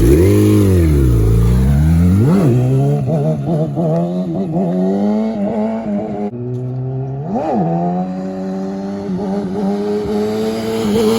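A small vehicle engine revving: its pitch swoops up and down twice in the first few seconds, climbs slowly, blips once more about halfway through and then holds a steady note.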